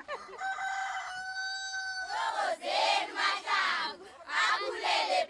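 Women in a celebrating crowd ululating and shouting. A high note is held for about two seconds, then comes a run of shrill, repeated cries.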